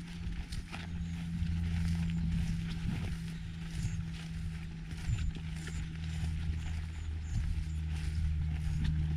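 Footsteps brushing through long meadow grass, irregular soft swishes and thuds, over a steady low drone that is the loudest sound.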